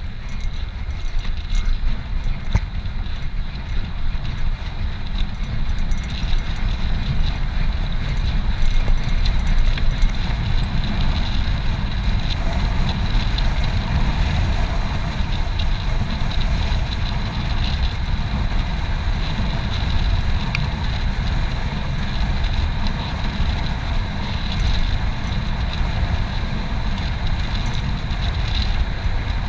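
Wind buffeting the microphone on a moving bicycle: a steady low rumble of rushing air.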